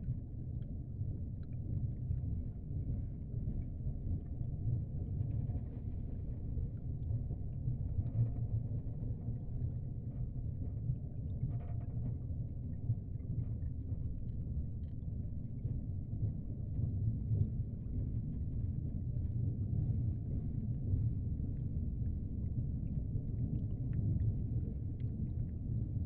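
Low, steady rumble of water, an underwater ambience, with faint scattered clicks.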